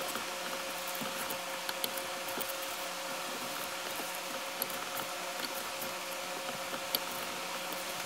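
A few faint scattered clicks of a metal Allen key working the bolts of a steering-wheel quick-release hub as they are tightened. Under them is a steady hiss with a faint hum.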